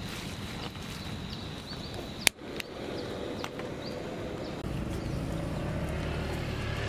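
Portable gas canister stove burning under a pot of cooking oil: a steady hiss and low rumble, with one sharp click a little over two seconds in. The rumble grows somewhat louder from about four and a half seconds.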